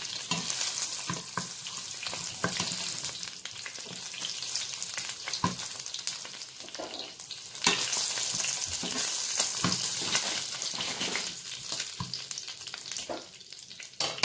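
Minced-meat balls frying in hot oil with a steady sizzle. Short clicks of a metal wire skimmer against the pan come through as the balls are turned and lifted out. The sizzle gets louder about eight seconds in.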